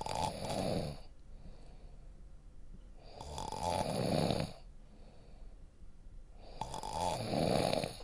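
A man snoring: three snores about every three and a half seconds, each swelling louder before it stops, with a faint breath between them.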